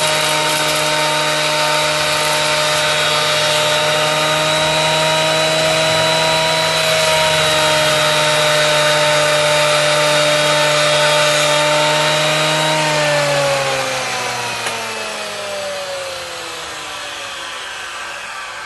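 Hitachi planer-thicknesser's electric motor and cutter head running at full speed with a steady high whine while a board is planed, then switched off about thirteen seconds in, the pitch falling as the cutter head spins down.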